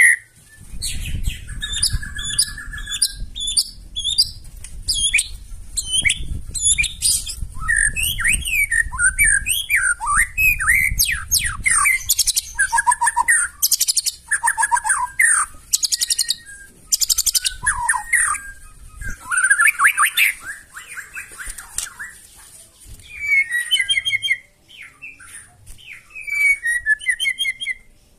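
White-rumped shama (murai batu) singing a long, varied song in quick succession. It mixes loud whistled notes, chattering phrases and fast high trills with short breaks between phrases.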